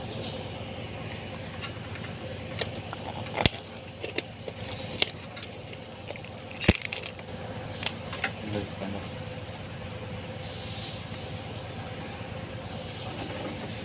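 A new spin-on oil filter and its cardboard box being handled: scattered light clicks and taps, with two sharper knocks about three and a half and nearly seven seconds in, over steady background noise with a faint hum.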